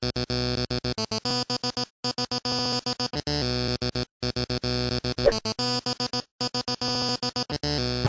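Electronic synthesizer music: a held chord rapidly chopped on and off in a stuttering rhythm. It drops out completely for a moment about every two seconds.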